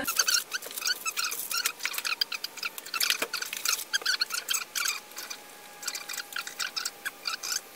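Plastic wrapping and shiny basket filler crinkling and rustling as gift items are packed into a plastic basket: a dense run of quick, irregular crackles.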